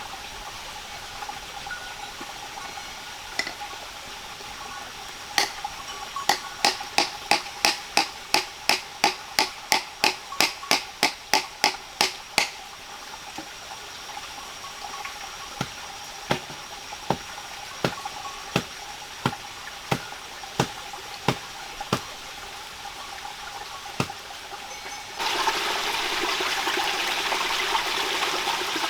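Steady rain-like water noise with a run of sharp, evenly spaced knocks, about three a second, that then slow to softer knocks about one and a half a second. Near the end the water noise suddenly grows much louder.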